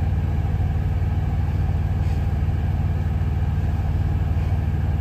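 Idling diesel engine of a semi truck, heard inside the cab: a steady low rumble with an even pulse.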